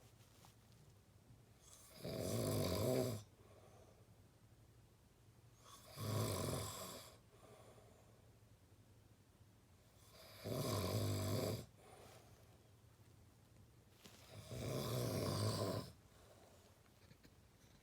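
A person snoring in deep sleep: four loud snores, each about a second long, coming evenly about every four seconds.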